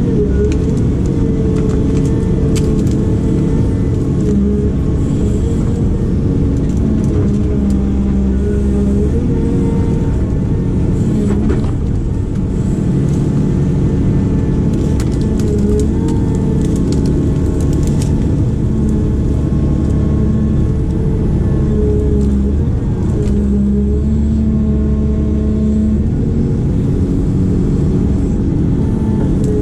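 Diesel engine of a working excavator or backhoe running under shifting load, its tone changing every several seconds as the hydraulics are worked, with scattered clanks and knocks from the work.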